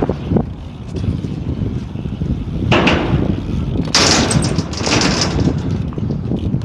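Wind buffeting the microphone with a constant low rumble, and two louder hissing rushes, one about three seconds in and a longer one from about four to five and a half seconds.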